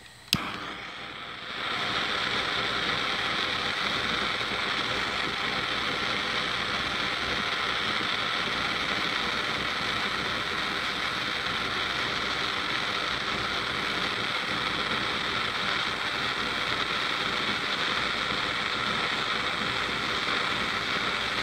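Hand-held gas torch lit with a sharp click, its flame building within a second or so to a loud steady hiss as it melts a lump of scrap silver in a plaster of Paris ingot mold.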